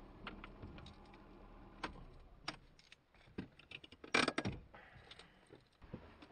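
Inside a small car just stopped: a low engine hum dies away about halfway through, among a run of sharp clicks and light metallic jingling, typical of an ignition key and cabin fittings being handled.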